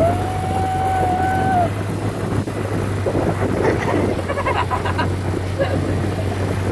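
Polaris Ranger utility vehicle running as it drives, a steady low engine drone under rough wind and ground noise. A child's long high yell near the start and children's shouting and laughing around the middle.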